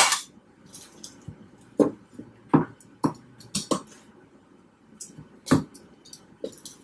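Metal kitchen tongs clicking against a Ninja air fryer's basket and a bowl as chicken legs are lifted and set into the basket: a handful of short, sharp clicks and taps at irregular intervals.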